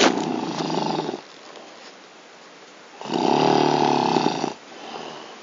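A man snoring very loudly in his sleep. One rasping snore is tailing off at the start, and after a quieter breath a second loud snore comes about three seconds in and lasts about a second and a half, followed by a softer exhale.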